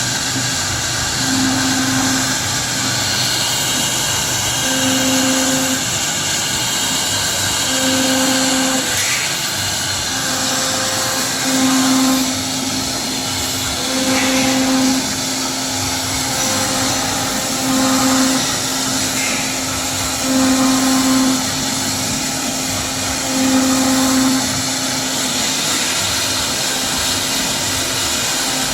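CNC router cutting MDF: steady spindle and cutting noise, with a low hum that comes on for about a second every two to three seconds.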